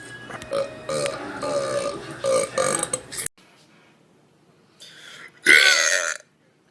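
A person belching on purpose: a run of short belches over the first three seconds, then, after a break, a short breathy sound and one long, loud belch about five and a half seconds in.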